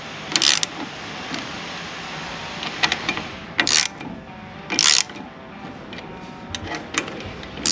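A ratchet wrench clicking in several short bursts as it is worked on the scooter's brake caliper bolts.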